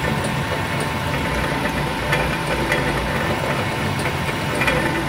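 Mill head of a Shoptask 1720 XMTC lathe-mill combo running steadily, a drill bit cutting the locating-pin hole for a Multifix tool post. A steady hum with a constant thin whine and a few faint ticks.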